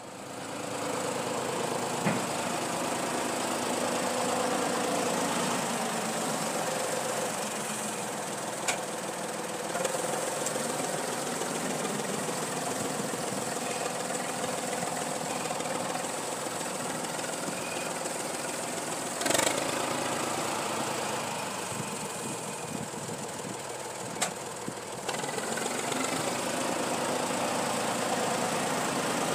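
Tractor engine running steadily under load, towing an earth scraper that is cutting into the soil. A few short sharp clanks sound over the engine, the loudest about two-thirds of the way through.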